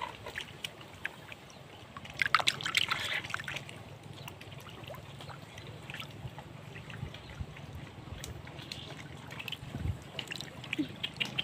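Small irregular splashes and trickles of shallow muddy water as hands work through mud and puddle, with a louder burst of splashing about two seconds in.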